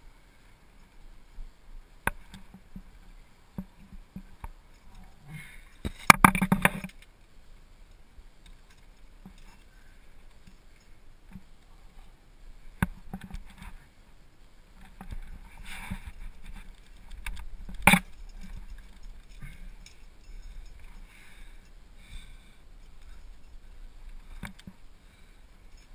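Handling noise of a climber moving up rock, heard through a helmet-mounted camera: hands, gear and helmet scraping and knocking against the rock, with scattered sharp clicks. The loudest is a scraping rustle lasting about a second, some six seconds in, and a sharp click about eighteen seconds in.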